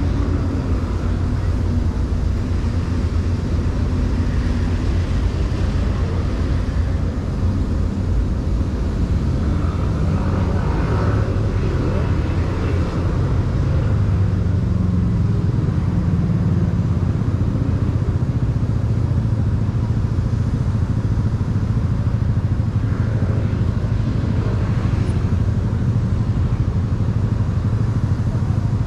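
Steady city road-traffic rumble, with passing vehicles swelling louder about ten seconds in, again around fifteen seconds, and near twenty-four seconds.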